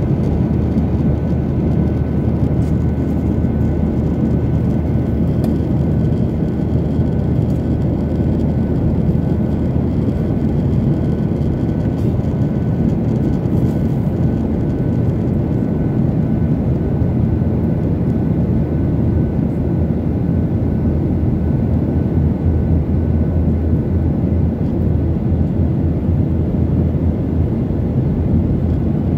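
Airliner cabin noise in flight: a steady, loud low rush of engines and airflow with a faint steady hum.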